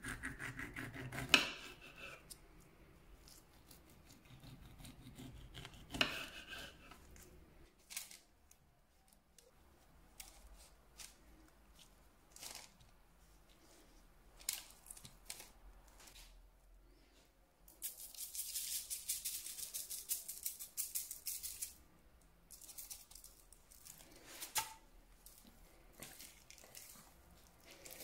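A knife slicing through a peeled mandarin and knocking onto the board, then soft taps of mandarin slices being laid in a parchment-lined metal loaf pan. Near the end there are about four seconds of dense hissing as sugar is sprinkled over the slices.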